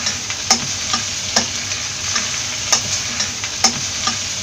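Chopped onions and tomatoes sizzling in hot sunflower oil as they are sautéed, stirred with a wooden spatula that knocks against the pan about once or twice a second.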